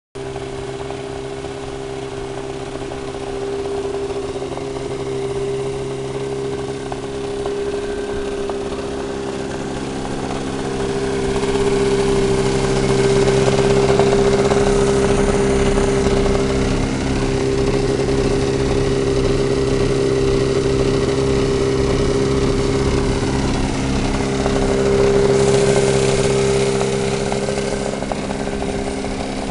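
Cuyuna 430 two-cylinder two-stroke engine of a powered parachute running steadily at a fast idle. It gets louder around twelve seconds in and again around twenty-five seconds.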